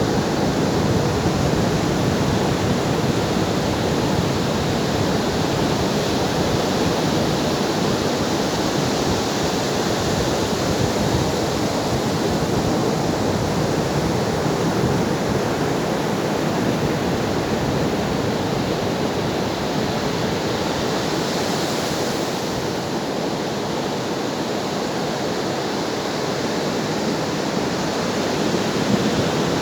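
Ocean waves breaking on a shore: a continuous, even rush of surf with only slight swells in loudness.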